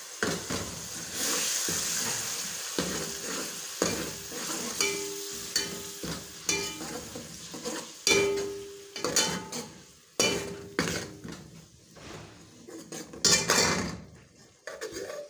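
Hot oil sizzling as ginger-garlic paste is stirred into fried onions and cumin, with a metal ladle scraping and knocking against the metal pot. The sizzle is strongest at first, and the loudest knocks come about eight, ten and thirteen seconds in.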